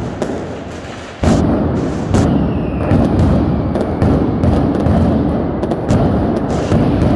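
Aerial fireworks display: shells bursting overhead in a rapid, unbroken run of booms and cracks over a heavy rumble. A sudden loud bang comes about a second in, and a short falling whistle shortly after.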